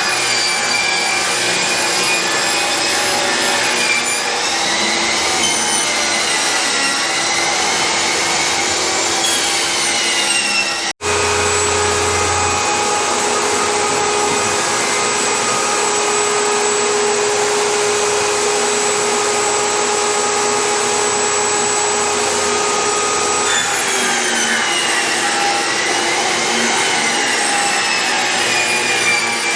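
Electric power tool running and working wood, a steady whine whose pitch drifts up and down. It drops out for an instant about eleven seconds in, then runs at a steadier pitch until it shifts again near the end.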